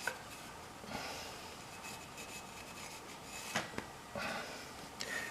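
Rag rubbing against a bicycle disc brake rotor, wiping it clean with acetone: faint swishing strokes with a few small clicks.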